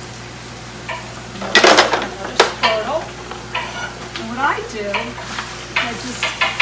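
Wooden spurtles clatter out of a utensil drawer, then scrape and knock against a stainless skillet as they turn thin-sliced chip steak and onions. The meat sizzles in the pan, with a string of sharp knocks and scrapes, the loudest about a second and a half in.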